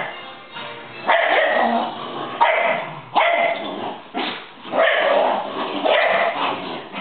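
Shetland sheepdogs barking in rough play, about six short sharp barks spaced roughly a second apart.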